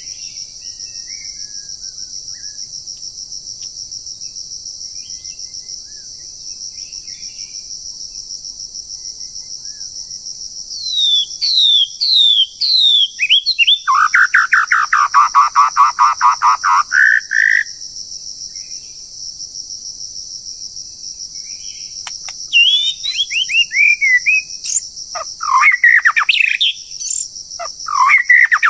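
Steady high-pitched drone of forest insects throughout, with a songbird calling loudly on top. After about ten seconds it gives a run of quick falling whistled notes, then a fast, loud trill lasting about three seconds. More whistled phrases come near the end.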